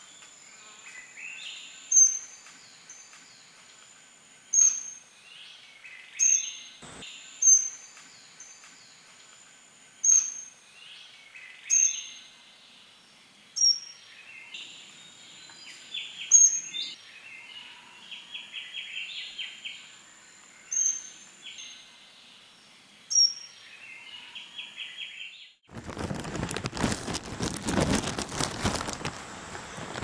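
Forest bird calls: sharp, high notes repeated every couple of seconds, with softer chirping between them. Near the end they cut off abruptly and a loud, steady hiss of heavy rain takes over.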